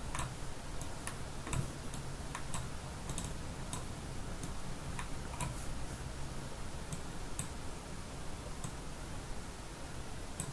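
Computer mouse button clicking: a dozen or so faint, sharp clicks at irregular intervals, some in quick pairs, over a low steady hum.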